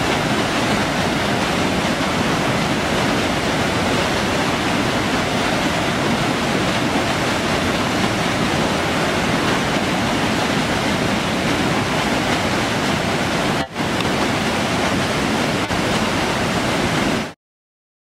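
Rushing white water of a stream cascading over rocks: a loud, steady noise with a brief dip about 14 seconds in, cutting off suddenly near the end.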